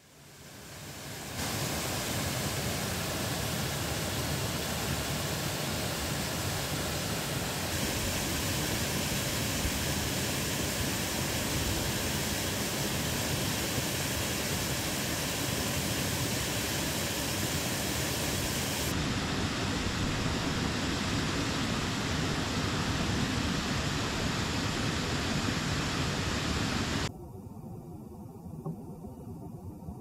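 Small creek waterfall pouring over a weir: a steady rush of falling water that fades in at the start. Near the end it turns noticeably quieter.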